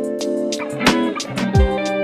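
Background music: guitar-led instrumental over a steady beat with deep kick-drum hits.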